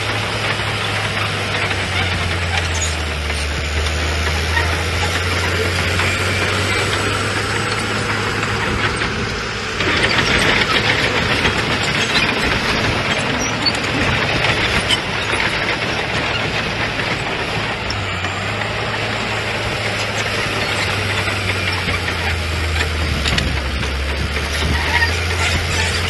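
Diesel engines of heavy earthmoving machinery running under load with a steady low drone, growing louder and harsher from about ten seconds in.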